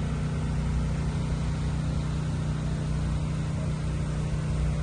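Steady low mechanical hum, an even drone with no change in pitch or level.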